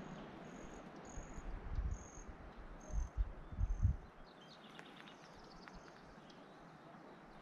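Outdoor nature ambience: a high, short chirp repeats about twice a second over irregular low buffeting on the microphone. The buffeting dies away about four seconds in, leaving a few faint chirps over a quiet background.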